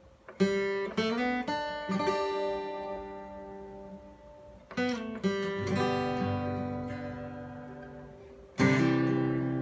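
Steel-string acoustic guitar played by hand: a slow phrase of single plucked notes and bass notes, each left to ring and fade, then a second phrase, and a loud full chord struck near the end that rings on.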